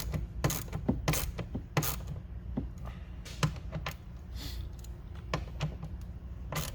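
Socket ratchet clicking in short strokes as a 10mm mounting bolt is tightened, with the strongest clicks in the first two seconds and lighter ticks after.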